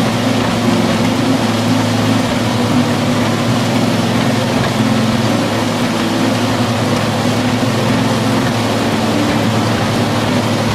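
Heavy engine of a mobile car shredder running steadily, a constant low drone with broad mechanical noise over it.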